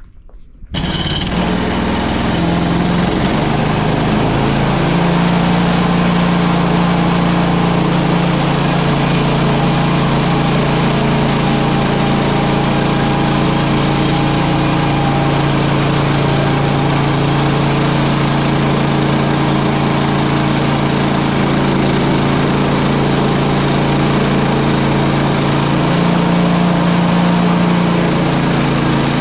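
Woodland Mills HM126 band sawmill's small gasoline engine coming in suddenly about a second in. It revs up over the next few seconds, then runs steadily at high speed.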